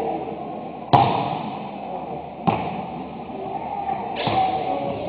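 Basketball bouncing on a hardwood gym floor: two sharp bounces about a second and a half apart, each echoing in the hall, over a low murmur.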